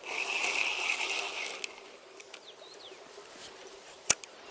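Fishing reel whirring for about a second and a half, then a quieter hiss with a single sharp click near the end.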